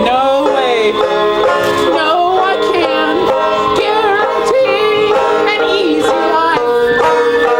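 A live acoustic band playing, with plucked strings and a melody line that slides up and down in pitch.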